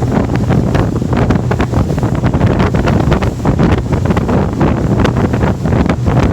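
Twin Mercury 200 V6 outboards running steadily at speed, around 4,500 RPM. Heavy wind buffets the microphone in irregular gusts over the engine drone and rushing water.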